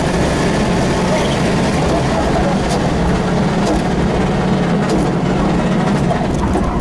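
Rally car engine running hard at fairly steady revs, heard from inside the stripped cabin along with loud road and drivetrain noise as the car drives down a stage at speed.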